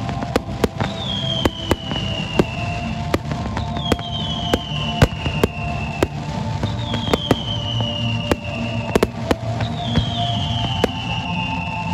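Fireworks display firing: a running string of sharp bangs and cracks from shells, cakes and fountains, two or three a second, over a steady crackling hiss.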